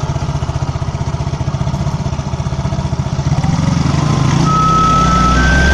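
Yamaha Mio automatic scooter's single-cylinder engine idling, then throttled up from about three and a half seconds in. As the revs rise, a corrugated hose stuck into the engine's cooling-fan shroud starts to whistle like a bamboo flute, its tone stepping higher with the engine speed.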